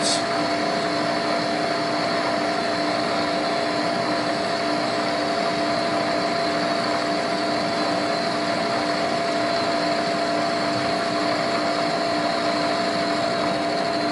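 Precision Matthews PM-935TV knee mill running at a steady pitch, its end mill taking a light finishing pass of five thousandths along the side of a steel block. The sound is an even whir with a constant high whine.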